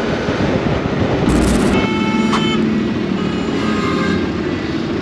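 Motorcycle riding noise, engine and wind, then a short rushing burst about a second and a half in, after which the sound turns to city traffic at an intersection. A high, steady horn-like tone sounds briefly twice, around two seconds in and again near four seconds.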